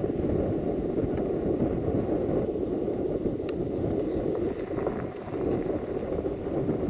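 Siemens Desiro diesel railcar running past at a distance: a steady low rumble of its diesel engine and wheels on the track.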